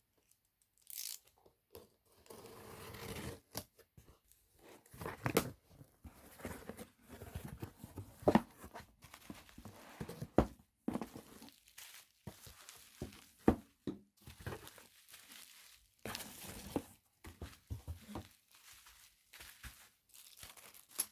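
Packaging being torn open and crinkled by hand, in irregular stretches with several sharp clicks.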